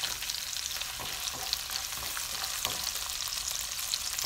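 Chopped garlic and ginger sizzling in hot oil in a nonstick wok as they are stirred with a silicone spatula: a steady frying hiss with a few light scrapes of the spatula.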